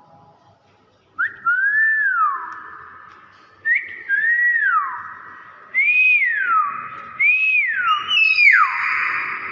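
Common hill myna (beo) whistling: about five loud, clear whistled phrases starting about a second in, each rising and then sliding down in pitch.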